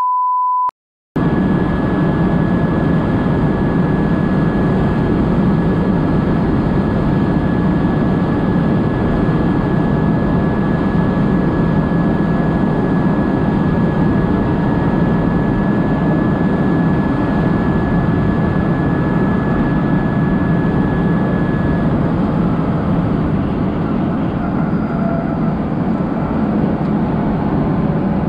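A short test-tone beep, then a Renault Twizy electric quadricycle driving at a steady speed, heard from inside its open cabin: steady wind and road noise with a thin high whine from the electric motor that fades out about two-thirds of the way through.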